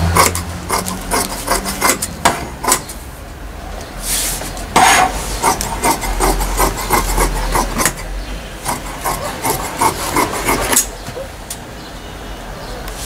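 Tailor's shears cutting through two layers of folded tracksuit fabric, with the blades rubbing as they close. It comes as runs of quick crisp snips, broken by short pauses.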